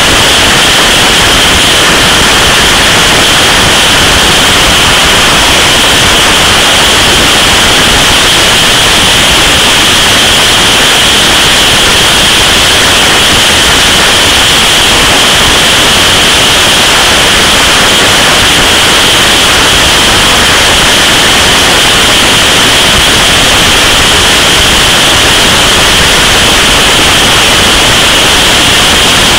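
Loud, steady wind rush on the microphone of a camera mounted on a motorcycle at motorway speed, an even hiss with no engine note standing out.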